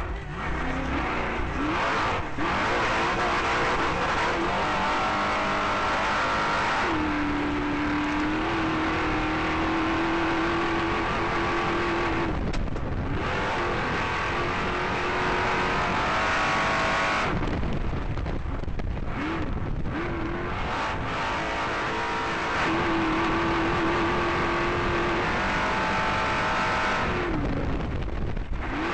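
Off-road race car's engine at hard throttle, heard from inside the car, with loud road and chassis noise. The engine note rises and holds, then eases off briefly several times as the driver lifts or shifts.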